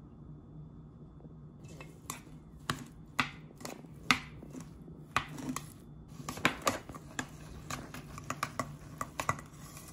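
Chopsticks stirring a chive, egg and wood ear mushroom dumpling filling in a stainless steel bowl, clicking and tapping irregularly against the metal from about two seconds in. A steady low hum runs underneath.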